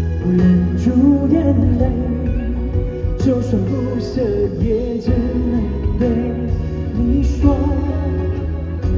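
Live pop ballad played by a band, with a singing voice carrying a wavering melody over a steady bass.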